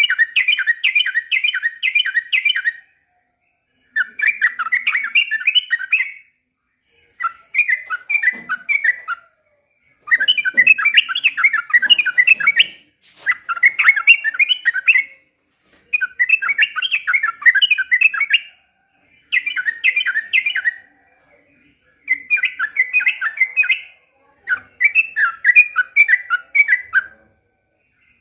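Trucukan (yellow-vented bulbul) singing. It repeats phrases of fast, tumbling notes, each two to three seconds long, with about a second of dead silence between them, some ten phrases in all.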